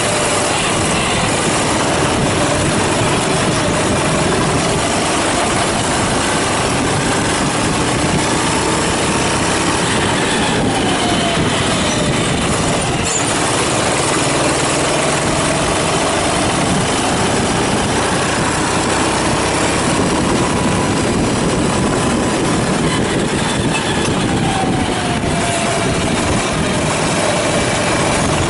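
Kart engine at speed, heard close up over steady road and wind noise, its pitch climbing slowly as it accelerates and then dropping as it slows for corners, a few times over.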